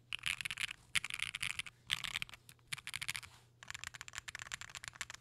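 Fast typing on a Nightowl60 mechanical keyboard built with factory-lubed HMX FJ400 linear switches, an FR4 plate, 70A o-ring mounting and GMK keycaps. The keystrokes come in about five quick runs of dense clacks, each under a second, with short pauses between them.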